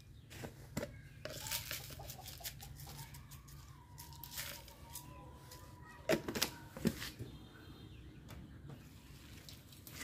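Hands handling salt containers over a steel bowl of chopped greens: rustling, light clicks and a few sharp knocks of the containers between about six and seven seconds in. Chickens cluck in the background.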